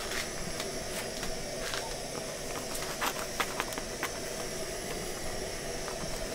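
Hush puppies frying in hot oil, a steady sizzle with a few light clicks and pops scattered through it.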